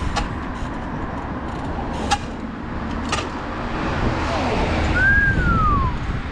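Trials bike hopping along the top of a brick wall: three sharp clacks as the wheels land, near the start and about two and three seconds in, over a steady traffic rumble. About five seconds in comes a brief squeal that rises slightly then falls in pitch.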